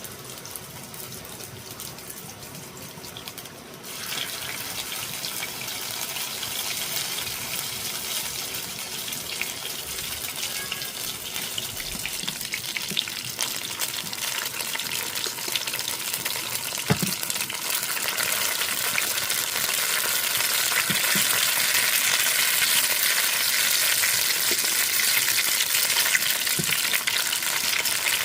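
Hot oil sizzling in a frying pan as food goes in, starting suddenly about four seconds in and growing louder, with a few light clicks of a utensil. This is eggplant being fried crisp.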